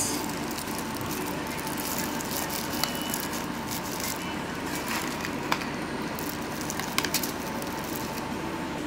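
Plastic bag crinkling with light scattered clicks as raisins are sprinkled by hand onto cake batter, over a steady background hum.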